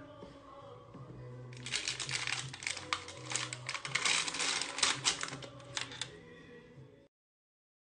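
Crisp crackling and rustling of baking paper as baked macaron shells are peeled off it, a dense run of small sharp clicks starting about one and a half seconds in and fading out before the sound cuts off near the end.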